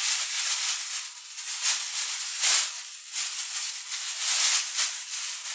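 Thin polyethylene shopping bag being handled and shaken out, a continuous crinkling rustle with several louder swishes.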